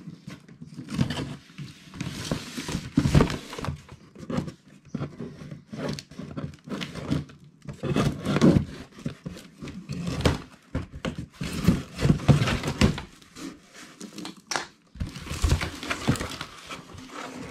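Box cutter slitting the packing tape along a cardboard shipping box, with irregular scraping, rustling and crinkling of tape and cardboard, and a sharp click about three-quarters through; near the end the box flaps are pulled open.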